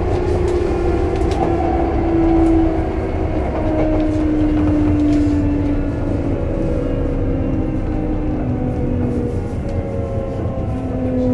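Sotetsu 8000 series electric train running, with the traction motor and inverter whine in several tones falling steadily in pitch as the train slows, over a steady low rumble of the running gear.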